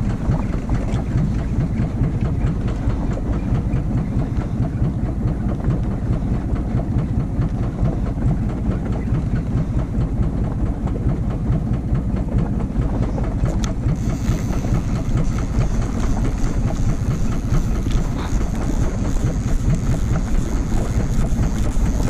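A fishing boat's engine running steadily, with a constant low drone.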